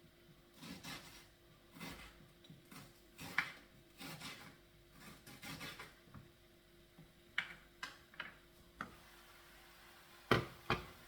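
Knife cutting onion on a wooden chopping board: irregular knocks and light scrapes, with a run of sharper knocks in the second half and the two loudest near the end.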